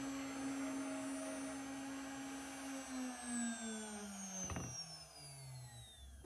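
CNC router spindle running with a steady whine, then spinning down from about halfway through, its pitch falling steadily as the cut ends. A brief click comes about two-thirds of the way in.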